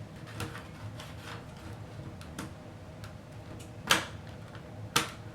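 Plastic parts of a Simon Optix toy's casing being handled and fitted back together: scattered light clicks and taps, with two sharper snaps about four and five seconds in.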